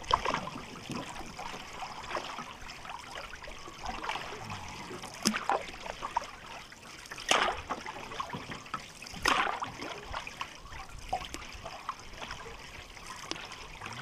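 Wooden canoe paddle dipping and pulling through lake water, with water trickling and dripping off the blade. A sharper splash comes about every two seconds in the middle.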